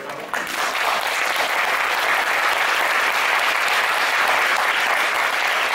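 Audience applauding: many hands clapping, swelling over the first second and then holding steady.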